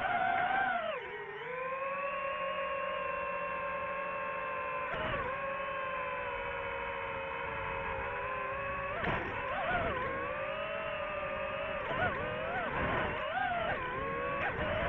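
Quadcopter drone's propellers whining steadily, the pitch dipping and swooping briefly a few times as the throttle changes.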